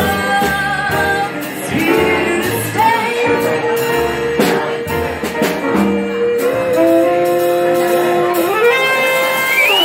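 Live jazz: a woman singing with saxophone, grand piano, upright bass and drums. She holds long notes, then rises to a higher held note near the end.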